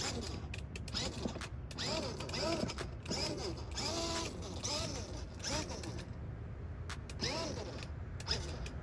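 Kidzone 6-volt ride-on bumper car's electric drive motors whining up and falling off again in short spurts as its joysticks are pushed, with scattered clicks.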